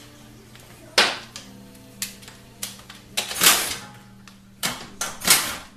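Irregular metallic clicks and knocks, about half a dozen, with one longer clatter a little past the middle, as the oil pan of a 6L80 automatic transmission is refitted and its pan bolts are put back in.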